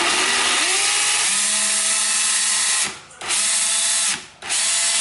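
National EZ6470 12 V cordless drill driver running free with no load, its motor and gearbox whirring. It speeds up about a second in, then cuts out briefly twice as the trigger is let go and squeezed again.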